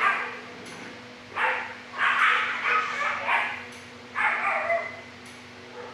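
Other shelter dogs barking: a bark at the start, another about a second and a half in, a quick run of several barks in the middle, and one more near the end.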